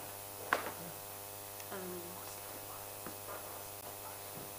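Steady electrical mains hum, with faint scattered voice sounds and a short click about half a second in.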